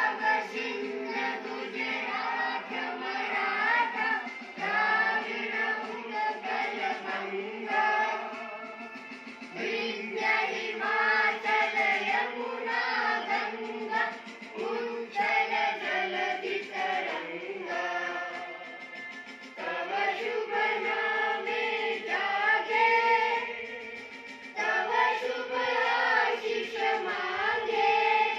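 A group of voices, children's among them, singing together in unison, in phrases with short breaths between them.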